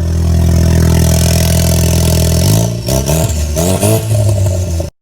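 Ford Mustang EcoBoost's turbocharged 2.3-litre four-cylinder, fitted with a catless downpipe, idling steadily and then revved in several quick blips from about two and a half seconds in. The sound cuts off abruptly near the end.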